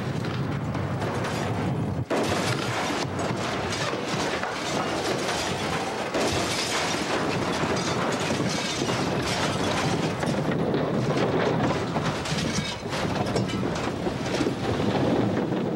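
Tornado wind tearing through the inside of a house: a loud, unbroken rush of noise with constant knocks, crashes and shattering as the ceiling, walls and contents are broken apart and thrown about.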